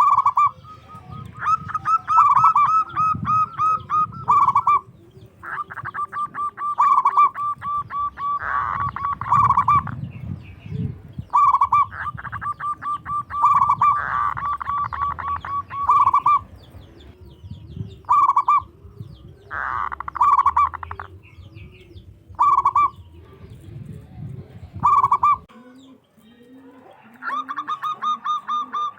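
Zebra dove (perkutut) calling loudly in repeated runs of rapid, clipped notes, some runs more rattling than others. Softer, lower coos join in the second half.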